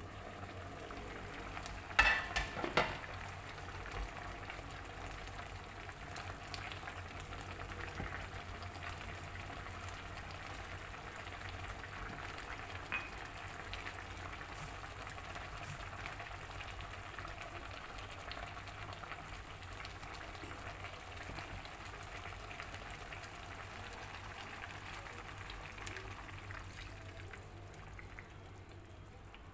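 A pan of smoked catfish and carrot curry simmering with a steady bubbling hiss, stirred with a wooden spatula. A short clatter about two seconds in, as the glass pan lid is lifted off.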